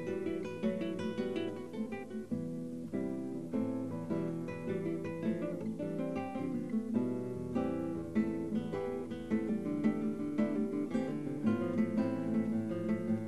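Two classical guitars playing a duo together, a lively, unbroken stream of quick plucked notes and chords.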